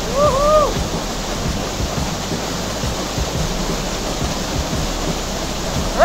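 Small waterfall pouring into a rock pool: a steady rush of falling water. A man gives a brief shout near the start.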